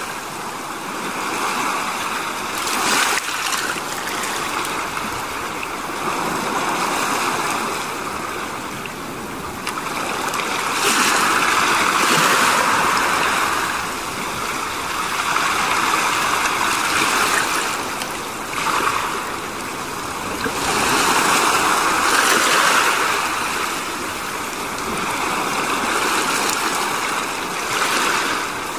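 Rushing, splashing water, swelling and easing every four to five seconds.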